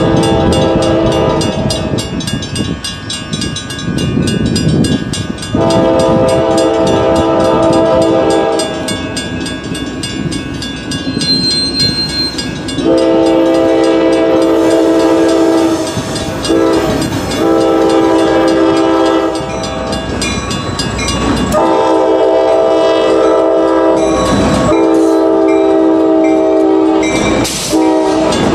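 Locomotive air horn of an F40PH diesel sounding a series of blasts for the crossing, mostly long with one short, over the rapid clanging of WRRS mechanical crossing bells. Near the end the train rolls into the crossing, its wheels clacking on the rails.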